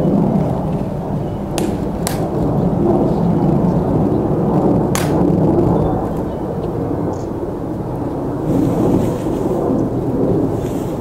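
Wind buffeting the microphone as a loud, uneven low rumble, with three short clicks in the first half.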